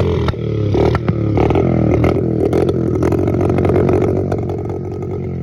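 Small 70cc dirt bike engine running and being revved, its pitch rising and falling with the throttle, with a few sharp clicks; it stops suddenly near the end. It runs again now that a loose wire in the wiring harness has been fixed.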